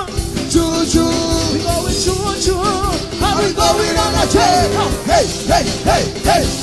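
Caribbean band music: a steady, driving drum beat under a lead riff of short notes that rise and fall, repeating about three times a second in the second half.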